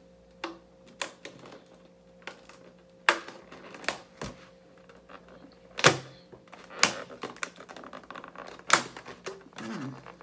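Clear plastic clamshell takeout container being pried at, its lid giving irregular clicks, crackles and sharp snaps, the loudest about three, six and nine seconds in. The lid is stuck and will not come open.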